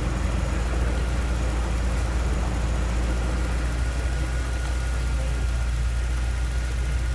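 BMW E36's M42 four-cylinder engine with individual throttle bodies, idling steadily at about 840 rpm on the stock ECU and airflow meter.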